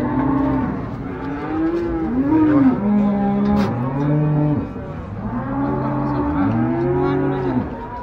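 Cattle mooing over and over, several low calls overlapping one another, easing off near the end.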